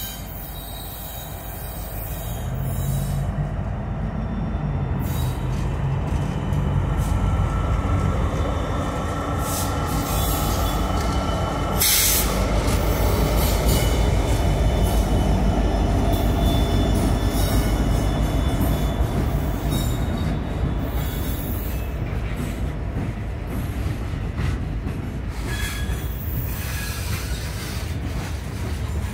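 Norfolk Southern freight train passing at close range: its diesel locomotives draw near and run by, growing louder over the first several seconds, then covered hopper cars roll past. A high steady wheel squeal runs for a few seconds, a single sharp bang comes about twelve seconds in, and clanks from the wheels over the rails follow near the end.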